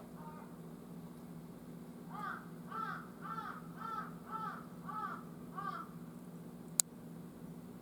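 A large-billed crow (jungle crow) cawing: a run of about seven hoarse caws at roughly two a second. A single sharp click comes about a second after the last caw. A steady low hum runs underneath.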